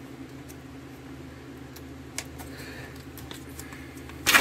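Plastic MRE meal bag being handled: a few faint ticks and rustles over a steady low hum, then one loud, sharp crackle of the plastic near the end.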